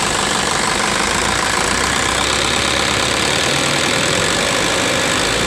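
Isuzu 4HG1 four-cylinder diesel engine idling steadily, with a dense, even knocking beat. It is running again after about two years in storage.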